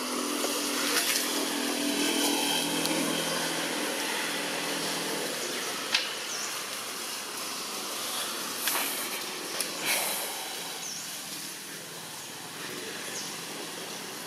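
Steady outdoor noise with a low engine-like hum that fades out about halfway, then a sharp click about six seconds in and a few fainter clicks a few seconds later.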